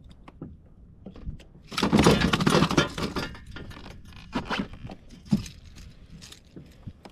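Rattling and clattering from fishing line and tackle being handled on a plastic kayak, with one loud rattling burst about two seconds in, lasting a second and a half, and a few lighter knocks after it.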